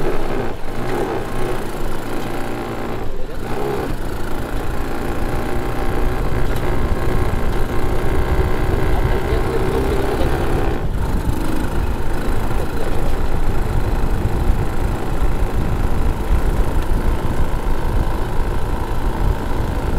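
ATV quad bike's engine running steadily as the bike rides along on sand, with a low rumble underneath.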